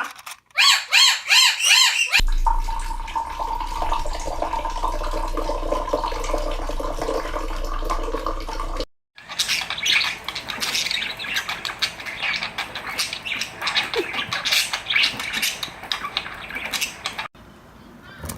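Pet birds squawking and chirping across several short clips: a fast run of repeated squawks in the first two seconds, then other bird calls, with the sound changing suddenly at about 2, 9 and 17 seconds. A steady low hum lies under the stretch from about 2 to 9 seconds.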